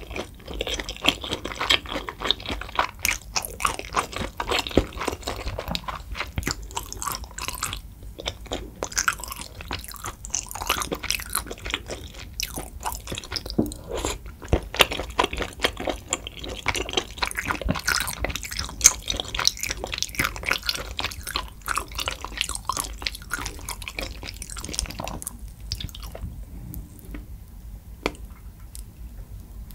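Close-miked chewing and biting while eating spicy soup tteokbokki, a steady run of many small mouth clicks that goes quieter about four seconds before the end.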